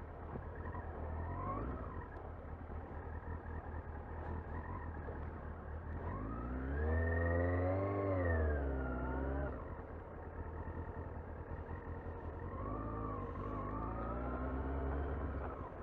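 Yamaha R6 inline-four motorcycle engine heard from inside the rider's helmet, over a steady rush of wind. Its revs climb and fall as it pulls away, loudest about halfway through, and rise again more softly near the end.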